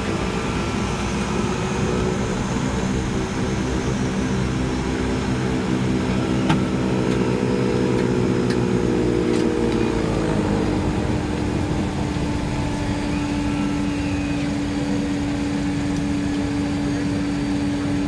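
De Havilland Canada DHC-6-300 Twin Otter turboprop engines and propellers running, heard from inside the cabin as the plane taxis. About ten seconds in, the propeller hum slides down in pitch as the engine beside the window is shut down and its propeller winds down, leaving one steady drone.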